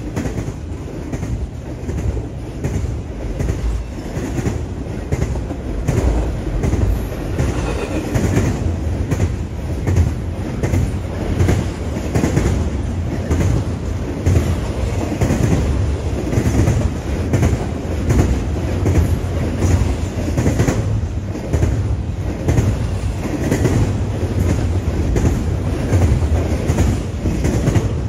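Double-stack intermodal train's container well cars rolling past, a steady heavy rumble with a continuous clatter of wheel clicks.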